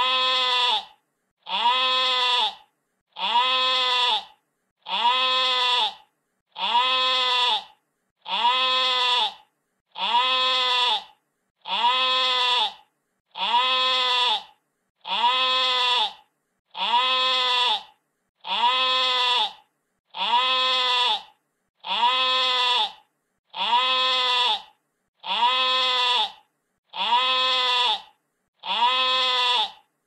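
Sheep bleating, the same wavering baa repeated over and over at an even pace of about one call every two seconds. Each call lasts a little over a second, with silence between.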